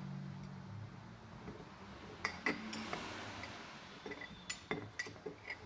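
Dried prunes being pushed with a spoon out of a glass cup into a glass jar: the spoon and fruit clink against the glass in a string of light, scattered clicks, sparse at first and thicker in the second half.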